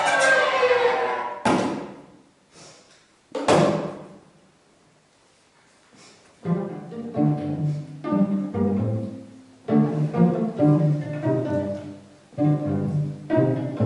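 String quartet playing contemporary chamber music. Ringing chords fade away, then come two sharp, quickly fading string attacks and a brief near-silent pause. About halfway through, choppy repeated chords start up, weighted in the cello and viola register.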